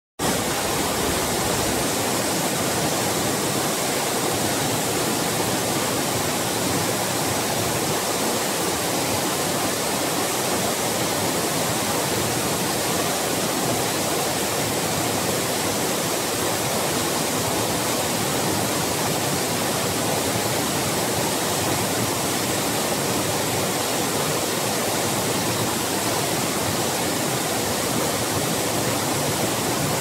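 Multi-tiered waterfall pouring over rock ledges into a pool: a steady, unbroken rush of falling water.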